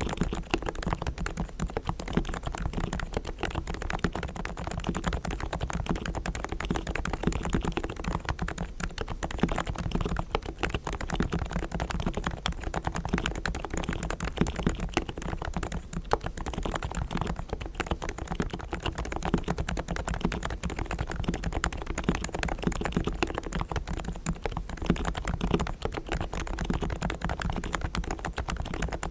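Realforce R3 tenkeyless Topre electrostatic capacitive keyboard with 45 g silent, equal-weight switches being typed on continuously in a dense, irregular run of keystrokes. Its springs and sliders are fully lubed with Krytox, its stabilizers are tuned and lubed, and the case is foam-dampened.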